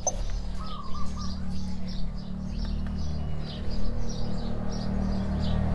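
Small birds chirping over and over in quick short notes, with one short wavering call a little under a second in, over a steady low hum.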